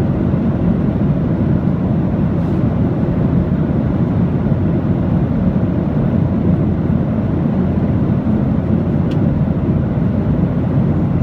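Steady aircraft noise: an even, low rumble that holds the same level without change.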